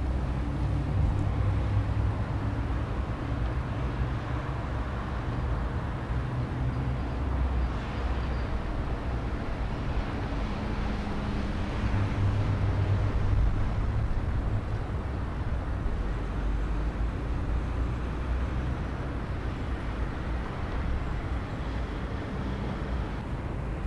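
Steady low engine rumble over outdoor background noise, with engine tones that fade in and out over several seconds.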